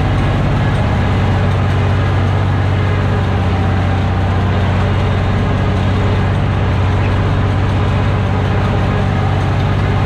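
Tractor's diesel engine running at a steady speed, a deep even drone with no change in pitch.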